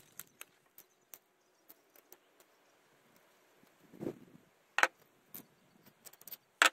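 Small metal parts handled close to the microphone, a nut and a zinc-plated draw bolt turned in the fingers: scattered light clicks and ticks, a dull bump about four seconds in, and two sharp clicks, the louder one at the very end.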